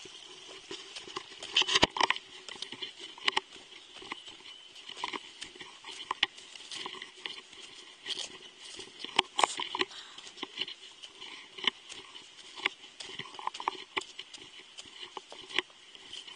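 Hiker's footsteps on a mountain trail: irregular crunching footfalls, about one or two a second. The heaviest come about two seconds in and again around nine seconds.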